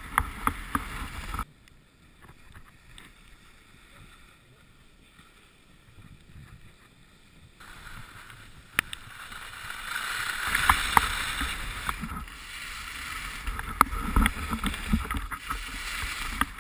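Skis running through snow: a rushing hiss with scattered sharp knocks. It drops to a faint hush about a second and a half in and builds again from about eight seconds in.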